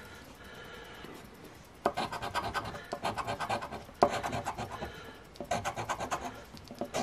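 A coin scraping the coating off a scratch-off lottery ticket: quick back-and-forth scratching strokes in several runs, starting about two seconds in.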